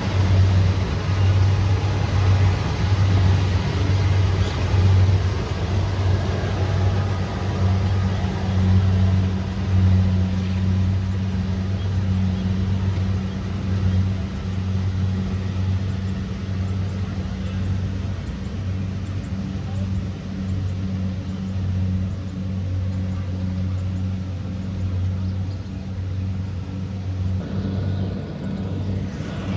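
Kubota DC70 Pro combine harvester running at a steady engine speed: a constant low diesel drone with a haze of machinery noise over it. The higher noise thins out near the end.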